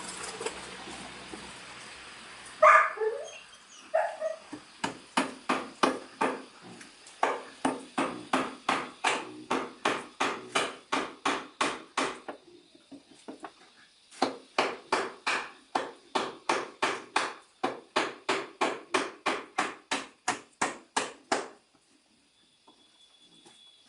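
An animal calling over and over in a fast, even rhythm, about three calls a second, in two long runs separated by a pause of about two seconds. A louder single sound comes before the first run.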